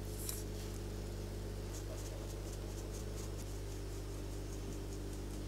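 Flour being sifted through a fine metal mesh sieve: faint, light scratchy ticks over a steady low hum.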